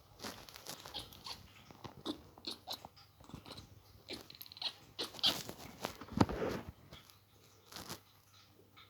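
A kitten making odd short clicking, crackling noises in place of a meow, in irregular runs, with a louder, longer rasping sound about six seconds in.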